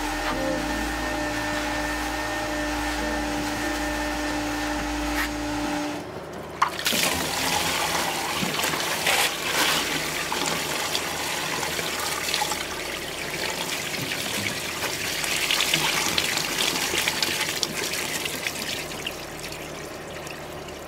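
Carpet extractor running steadily as its wand is drawn over wet car carpet. About six seconds in the sound changes to dirty water gushing from the extractor's drain hose and splashing into a floor drain.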